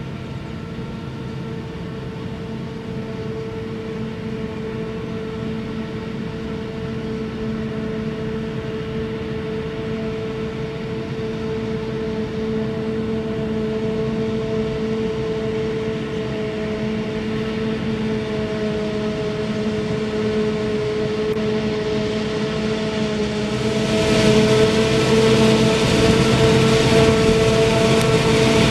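Self-propelled forage harvester chopping maize, its engine and chopper running with a steady hum, together with a tractor pulling a silage wagon alongside. The sound grows gradually louder, and louder again about five seconds before the end.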